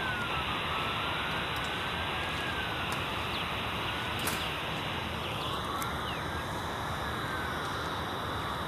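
Steady outdoor background hiss with faint tones that slowly rise and fall, no distinct event.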